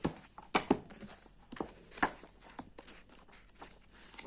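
Books and packaging being handled: scattered light knocks and brief rustles as items are picked up, moved and set down.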